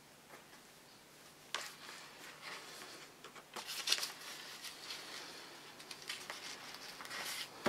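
Paper and fabric being handled: after a quiet start, a light click about a second and a half in, then soft, irregular rustling.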